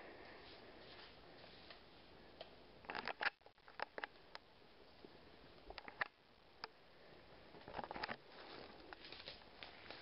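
Footsteps crunching through dry leaves and twigs on the forest floor: scattered faint crackles, with two louder bursts of crunching about three seconds in and about eight seconds in.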